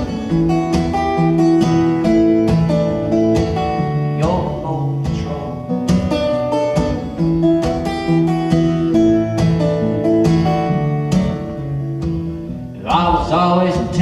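Acoustic guitar strummed in a steady rhythm: an instrumental break between sung verses of a folk song.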